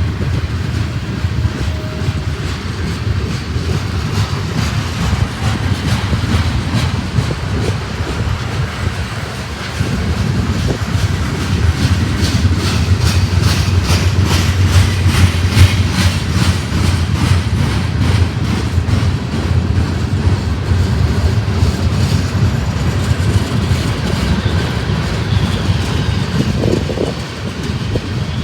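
Freight train rolling past, a steady low rumble with the wheels clicking rapidly over the rail joints, loudest through the middle.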